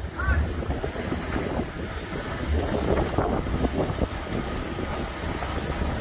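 Wind buffeting the microphone over the wash of choppy sea around a small boat.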